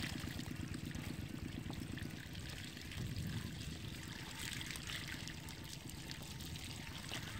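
Water pouring and trickling steadily through a gap in a mud embankment, with a steady low rumble underneath.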